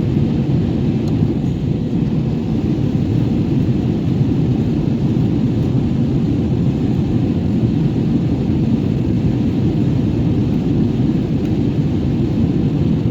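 Steady low rumble of an airliner heard from inside the passenger cabin: engine and airflow noise, even and unchanging.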